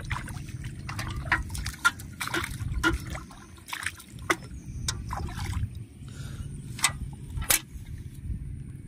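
Footsteps wading through shallow, muddy water, each step a short splash or slosh at an irregular pace.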